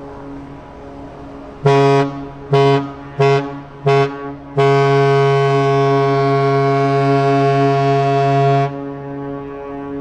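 Ship's horn of the 1959 Project 588 river cruise ship Timiryazev giving a farewell signal: four short blasts in quick succession, starting a little under two seconds in, then one long blast of about four seconds. A steady low hum runs beneath before and after.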